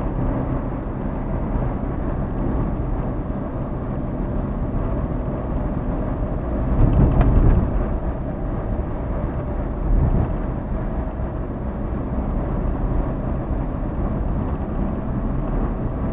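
Fiat Uno's engine and road noise heard from inside the cabin while driving in traffic: a steady drone, with a brief louder low rumble about seven seconds in and a smaller one near ten seconds.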